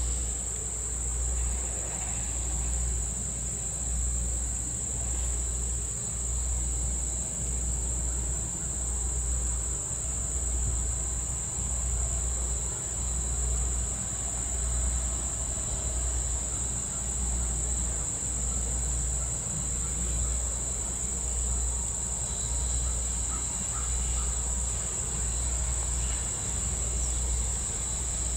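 A steady, high-pitched insect chorus of summer crickets or katydids. A low rumble pulses underneath every second or two.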